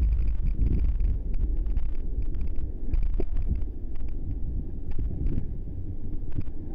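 Sea water sloshing and lapping around a camera at the ocean surface, with short splashes scattered through. Wind buffets the microphone as a steady low rumble.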